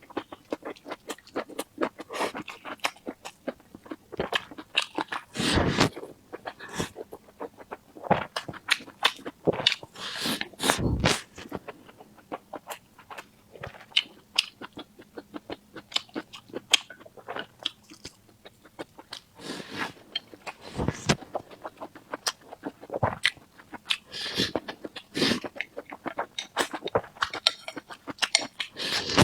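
Close-miked chewing and mouth sounds of someone eating stir-fried pork intestines with chili peppers and rice: a dense run of irregular clicks and crunches, with a few louder bites.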